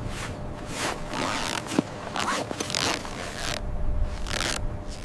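A run of short rasping scrapes, several in a row and irregular, from gear or clothing being handled.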